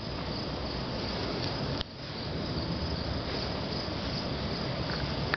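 Crickets chirring steadily under a dense rustling hiss, with a brief drop in level about two seconds in.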